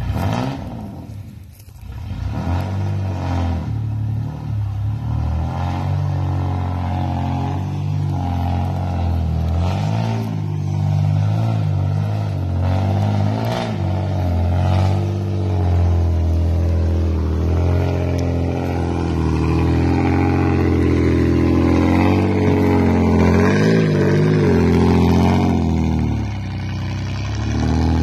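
Engine of a tube-frame off-road rock-crawler buggy revving up and down as it climbs over rocks. Its pitch rises and falls again and again, and it gets louder in the second half.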